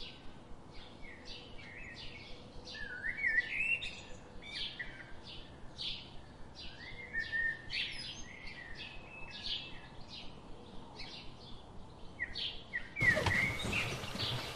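Wild birds calling in quick succession: a steady chatter of short, sharp chirps and rising whistled swoops, several a second. About 13 seconds in, the recording cuts to a louder hissing background with a few more chirps.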